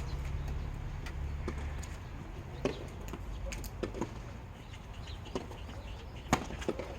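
A few irregular sharp knocks of a tennis ball being hit and bouncing on a hard court, the loudest about six seconds in, over a low rumble that fades out in the first two seconds.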